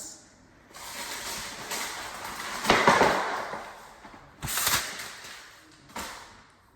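Ceiling fan blade being worked onto the motor's mounting screws: scraping and handling noise, then a sharp click about four and a half seconds in and a smaller one about six seconds in as the blade is pushed and pulled to snap it into place.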